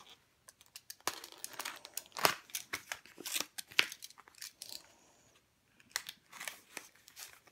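Paper packaging handled and torn open by hand: a quick run of crinkles, rips and small crackles, with a short pause about five seconds in before more crinkling.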